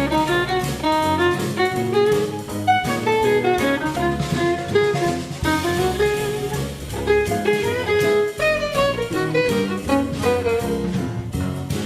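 Instrumental background music with a steady drum beat and a quick-moving melody.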